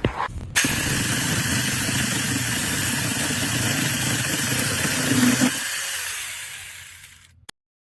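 SEESII 40V brushless cordless chainsaw starting abruptly and running steadily at full speed, then winding down and stopping after about five seconds.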